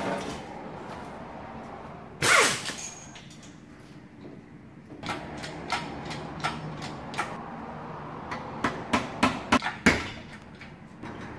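Metal clanks and sharp knocks from a shop engine hoist being handled: one loud clank with a falling ring about two seconds in, then a run of sharp knocks that comes faster toward the end.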